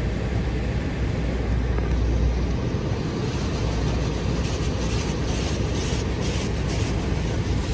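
Automatic tunnel car wash heard from inside the car's cabin: a steady rush of water spray and wash machinery over the body. From about three seconds in, a rhythmic swishing comes a few times a second.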